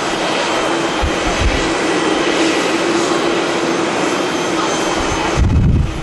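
Boeing 787 Dreamliner's jet engines on landing approach, a steady roar with a low hum and a high whine over it. Wind gusts buffet the microphone with low rumbles, the heaviest near the end.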